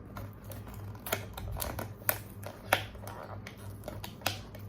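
Blind-box packaging being handled and opened by hand: a few sharp clicks and taps with light rustling in between.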